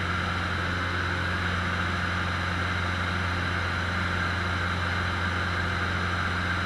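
Cessna 150's four-cylinder Continental O-200 engine and propeller running steadily in flight, heard inside the cabin as a constant low hum under a rushing noise.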